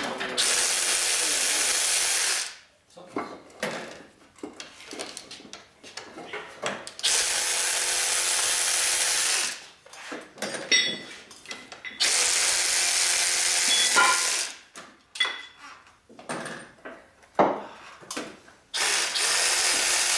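A power tool run in four bursts of about two seconds each, each a loud, even hiss with no clear pitch. Short metallic clanks and clicks come between the bursts.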